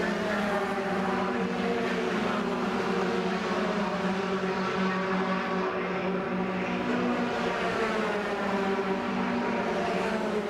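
Engines of racing pickup trucks running around an oval, several engine notes overlapping steadily, with their pitches bending as trucks pass.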